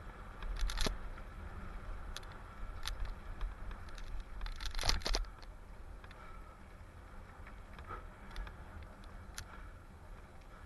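Mountain bike riding down a dirt forest trail: the chain and bike rattling with sharp clacks over bumps, loudest about five seconds in and sparser after, over a steady low wind rumble on the microphone.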